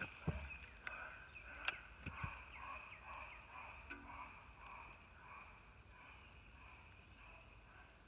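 Steady insect drone at two high pitches, with faint repeated calls in the first few seconds and a few light clicks in the first two and a half seconds. No gunshot.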